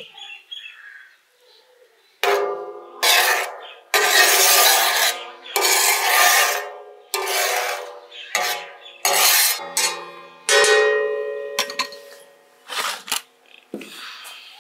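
Metal spatula scraping across a large steel griddle (tawa) as melted ghee is spread on it. There are a dozen or so strokes, each lasting about a second, and each makes the steel ring and screech. They begin about two seconds in and stop shortly before the end.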